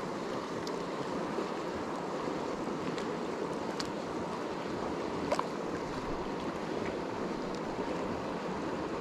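Steady rush of the Arkansas River running over shallow riffles and rapids, with a faint click a little past the middle.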